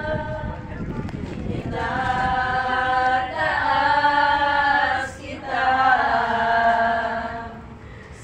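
A group of women singing together without instruments, in long held notes, with a brief break about five seconds in.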